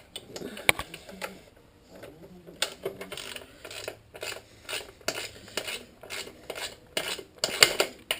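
A hand tool clinking and scraping on metal in a run of short strokes, about two a second, as the nut on the motorcycle's kickstand bolt is tightened. The loudest clink comes near the end.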